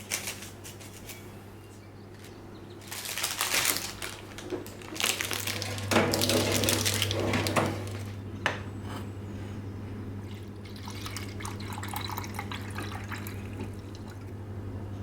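Water running from a kitchen tap into a sink in two spells, about three and five seconds in, with scattered clinks of dishes. A low steady hum runs underneath.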